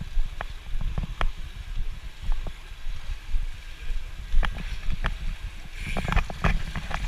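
Pool water lapping and knocking against a camera held at the water surface: a steady low rumble with scattered sharp clicks. About six seconds in there is a short burst of splashing as a swimmer surfaces close by.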